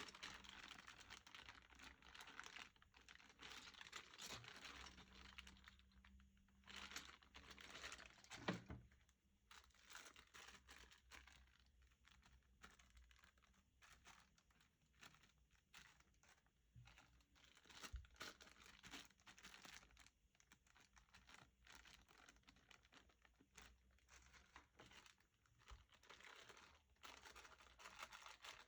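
Faint crinkling and rustling of keyboard packaging being unwrapped and handled, with many small clicks and knocks throughout and louder stretches near the start and about eight seconds in.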